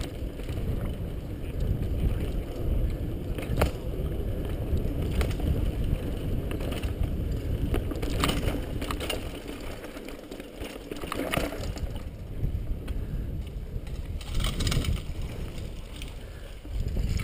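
Mountain bike rolling fast over a dirt forest trail: steady low wind rumble on the bike-mounted camera microphone with tyre noise on the dirt, and scattered sharp rattles and clicks from the bike over bumps.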